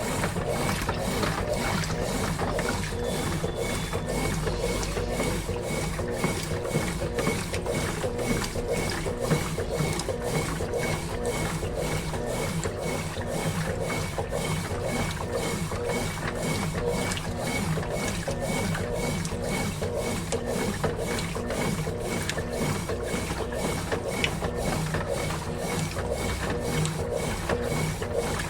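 Consul Facilite 11 kg (CWG11) top-loading washing machine running its wash cycle with a load of clothes: a steady, rhythmic churning at about two strokes a second, with a faint pulsing whine.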